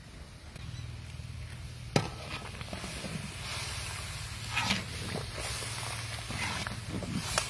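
A metal ladle knocks once sharply against a large metal cooking pot, then stirs and scrapes through the simmering broth in it with several rough strokes, over a low steady hum.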